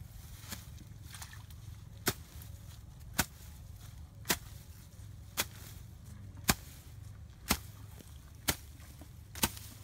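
Sharp knocks, about one a second at an even beat, over a steady low hum.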